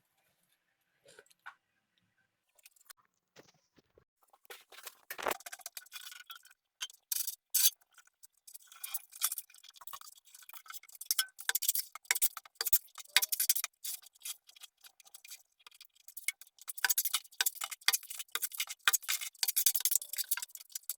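Dense run of rapid clicks and scratchy scraping, starting about four seconds in after near silence.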